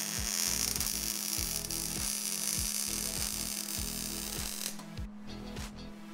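MIG welder arc running on steel tube with a steady hiss and crackle, stopping about three-quarters of the way through; background music with a steady beat underneath.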